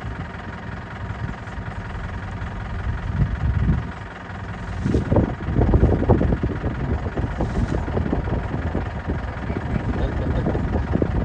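A vehicle's engine idling steadily. From about five seconds in, a dense, irregular crackling joins it.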